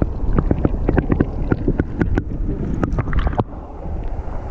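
Water sloshing and splashing, with knocks from the camera being handled at the water's surface. About three and a half seconds in it changes suddenly to a steadier, duller wash.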